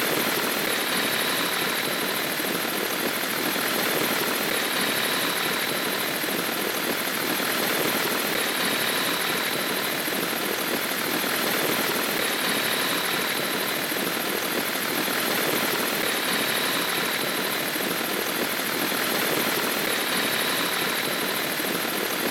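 A flex-wing microlight's four-cylinder petrol engine and propeller running steadily at an even power during pre-take-off checks.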